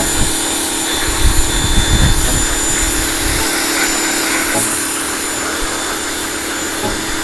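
Ryobi 1600 electric pressure washer running: a steady motor-and-pump hum under the hiss of the water jet blasting grime off patio stones, with a rougher low rumble for the first few seconds.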